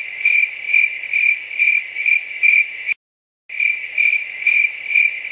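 Crickets chirping in a steady pulsing trill, about two to three pulses a second, which cuts out abruptly for half a second near the middle and then picks up again.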